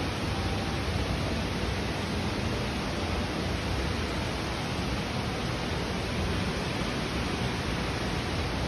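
Steady, even rushing noise of running water from an indoor garden river, with no distinct events.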